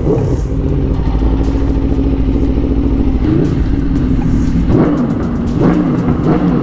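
Aprilia RSV4 1100 Factory's V4 engine through an SC Project SC1-R exhaust, heard onboard while riding. It holds a steady running note for the first few seconds, then the revs rise and fall several times in the second half.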